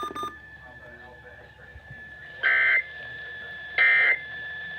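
Emergency Alert System end-of-message code: two short, loud bursts of screechy digital SAME data tones, the first about halfway in and the second about a second and a half later, marking the end of the alert. A faint steady high tone hums underneath.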